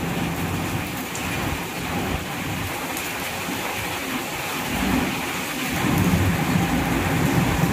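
Heavy rain pouring steadily in a storm, with a low rumble that swells again and grows louder about five seconds in.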